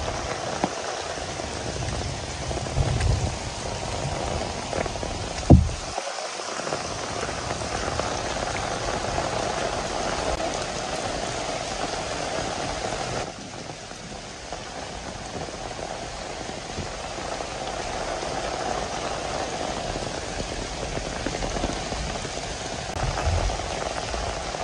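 Heavy tropical rain falling steadily on trees, paths and roofs, a constant hiss of rain. A few sharp low knocks come in the first six seconds, and the rain sound drops a little in level about halfway through.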